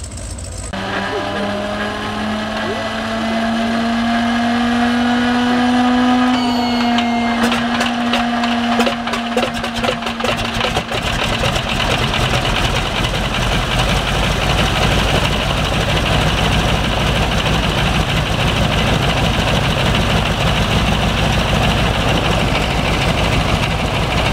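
A large single-row radial aircraft engine on a test stand being started: a whine rises steadily as it is cranked, the engine fires with rapid popping about seven seconds in and catches, then runs steadily with the propeller turning.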